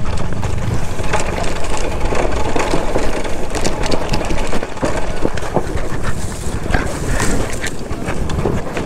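Kawasaki KLX 140G single-cylinder four-stroke dirt bike being ridden over a rough trail. Its engine sits under heavy wind buffeting on the microphone, with frequent short knocks and rattles from the bike over rocks.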